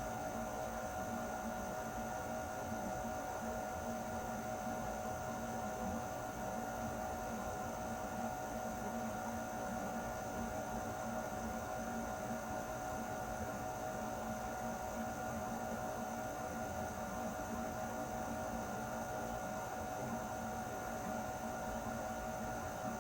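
Air conditioner running steadily: a constant hum with several fixed pitched tones over a soft even rush of noise.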